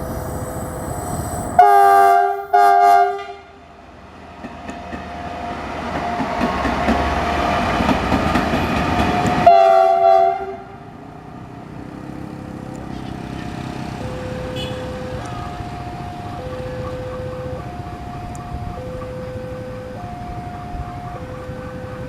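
Diesel-hydraulic locomotive CC 300 12 03 sounds two short blasts on its multi-note horn, then its engine and wheels grow louder as the train draws closer, with a third horn blast about ten seconds in. Beneath it a two-tone warning alarm alternates steadily, about one tone a second.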